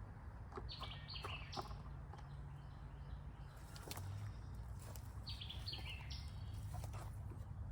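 A songbird calls twice, each a short phrase of quick stepped chirps, about a second in and again about five seconds in. Scattered light clicks and knocks from items being handled, over a steady low rumble.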